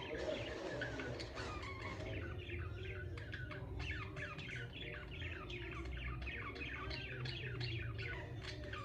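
Budgerigars chirping and chattering in quick, overlapping short calls that fall in pitch, growing busier about two seconds in.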